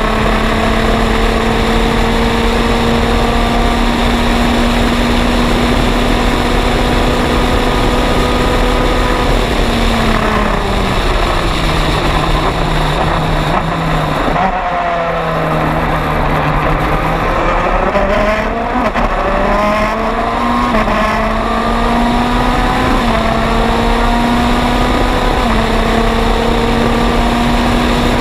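Onboard sound of the MG Lola EX257 sports prototype's turbocharged four-cylinder engine, with wind rushing past the open cockpit. The engine holds a steady high note flat out, drops in pitch through several downshifts into a slower section, then climbs back up through the gears to the same steady note.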